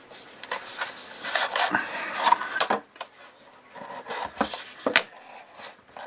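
Cardboard product box being opened and its inner tray slid out, rustling and scraping for the first half. Then a few lighter knocks and clicks as the packaging and the mounts are handled.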